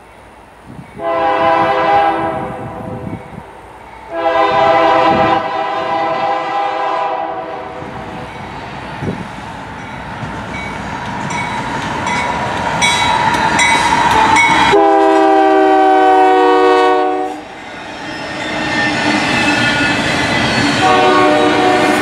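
Freight locomotive's multi-chime air horn sounding for a grade crossing: two long blasts starting about one and four seconds in. After that the rumble and wheel clatter of a double-stack container train build as it passes close by. The horn gives another long blast about fifteen seconds in and starts again near the end.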